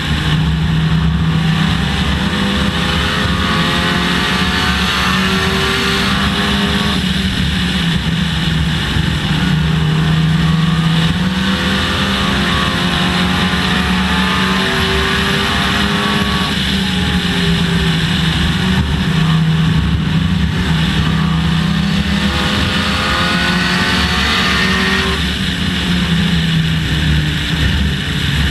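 Dodge Neon race car's four-cylinder engine at racing speed, heard onboard: the revs climb steadily down each straight and drop off as the driver lifts for the turns, about three times, over steady tyre and wind noise.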